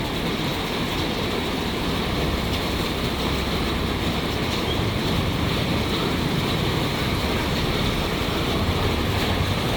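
Steady rushing noise of heavy rain and running floodwater.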